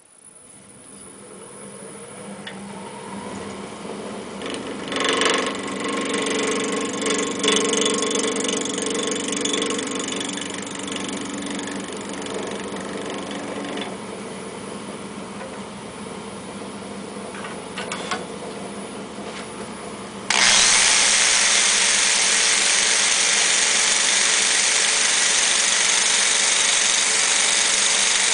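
Wood lathe switched on with a click and its motor spinning up, then a turning tool cutting the spinning off-axis pen blank. About two-thirds of the way in, a much louder steady noise starts suddenly and runs on.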